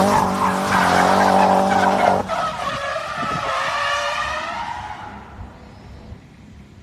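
Nissan S15 Silvia's SR20 four-cylinder engine at high revs during a drift, with tyre noise. About two seconds in, the engine note changes and fades away over the next few seconds.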